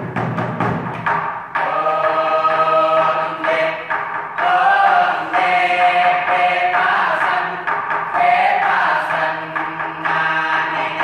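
A choir singing held chords in several parts, with a few sharp percussive beats in the first second or so.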